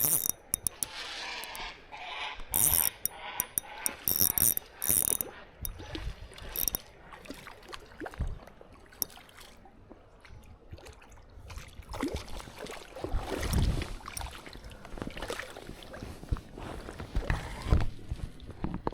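KastKing Kestrel 1000 spinning reel being cranked with its drag clicking out line in short spurts, loudest in the first five seconds, while a hooked smallmouth bass pulls against the ultralight rod.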